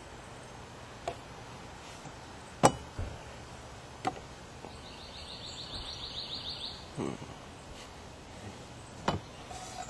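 Scattered sharp knocks and clinks of camp cookware being handled, the loudest a little under three seconds in. From about halfway through, a high, rapid trill lasts about two seconds.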